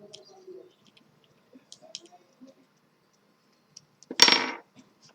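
Faint small clicks of handling parts, then a single sharp metallic clink with a short ring about four seconds in: a small metal part or tool set down on a hard surface.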